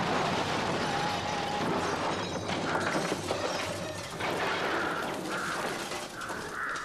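Debris crashing and clattering down in the aftermath of a dynamite blast that has just blown open a safe. Crows start cawing near the end.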